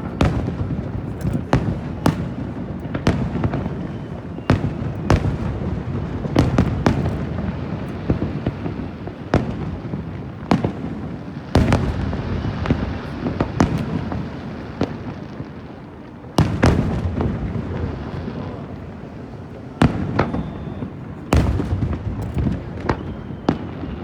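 Aerial fireworks shells bursting one after another at an irregular pace, each a sharp bang trailed by a low rumbling echo. There is a lull around the middle before a loud burst restarts the barrage.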